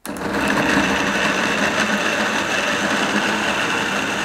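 Electric mixer grinder switched on and running at full speed, its motor giving a steady whine as it grinds tomatoes, green chillies and ginger to a fine paste in the steel jar.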